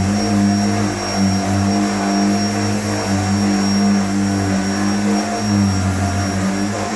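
A corded cylinder vacuum cleaner running steadily on carpet: a motor hum with a thin high whine above it, swelling and dipping slightly as it is pushed about.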